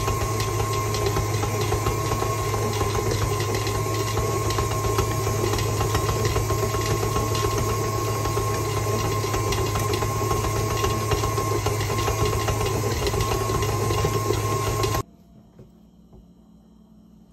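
KitchenAid Artisan stand mixer motor running steadily on speed 2 while kneading pasta dough, with a constant hum and whine. It cuts off suddenly near the end.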